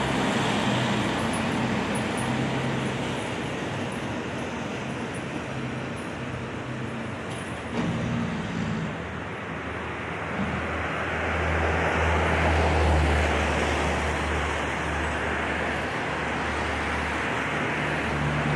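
Fire engine's diesel engine running as it moves off down the street, over steady road and traffic noise. A deeper engine drone grows louder around twelve seconds in, then eases.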